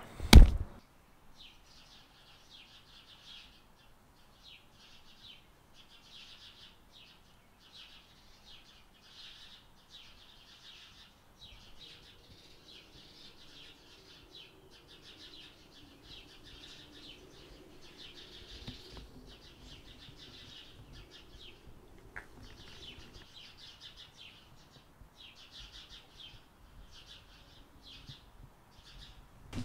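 Birds chirping faintly: rapid high twittering calls repeating every second or so. It follows a short sharp knock right at the start, and a faint low hum sits underneath from about twelve to twenty-three seconds in.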